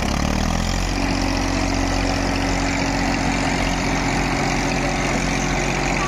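Diesel tractor engine, the Massey Ferguson 1035 nearest, rising in speed over the first second and then running steadily at high revs while hitched to a second tractor.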